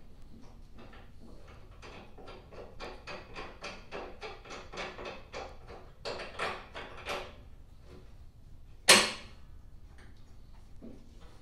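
Ratchet wrench clicking in an even run of about three or four clicks a second while the handlebar bolts of a new snowblower are tightened. A single loud, sharp metal knock follows about nine seconds in.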